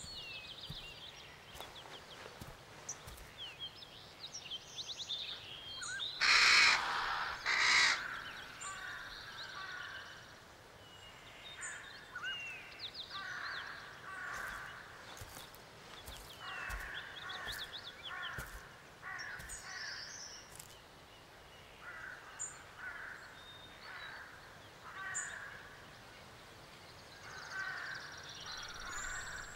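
Woodland ambience of birds chirping and calling, in short repeated phrases throughout. Two short, loud, harsh sounds stand out about six and a half and eight seconds in.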